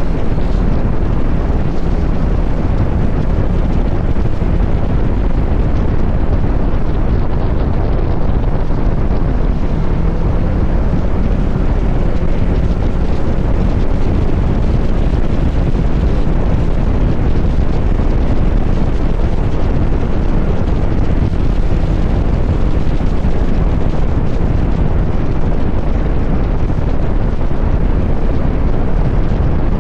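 Kawasaki Z900 SE's inline-four engine with an SC-Project CR-T exhaust running steadily on the move, heard under heavy wind rush on the microphone.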